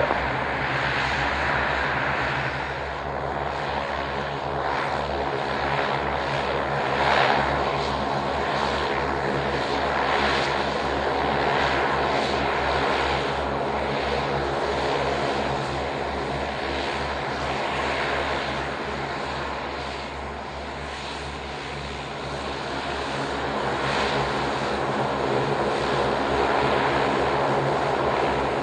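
Saab 340 AEW&C twin-turboprop aircraft taxiing and lining up on the runway, its engines running at low taxi power: a steady propeller drone with a high whine.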